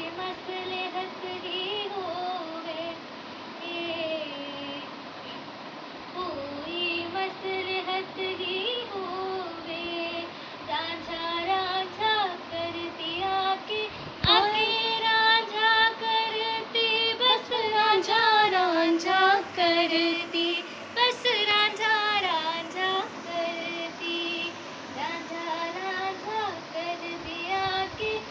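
Background song with a high singing voice carrying a gliding melody over a light music track, growing louder about halfway through.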